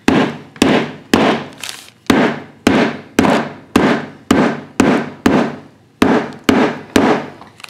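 Metal meat mallet pounding hard green sweet gum seed pods inside a plastic freezer bag on a countertop: about fourteen sharp blows, roughly two a second, with a short gap a little after halfway. Each blow cracks the pods' hard outer shells.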